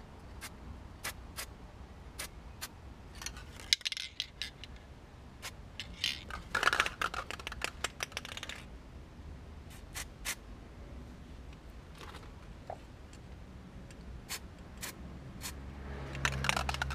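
Copper spray (aerosol can) hissing in short bursts onto a brake caliper, the longest about two seconds, with scattered sharp metallic clicks and taps from handling the can and parts.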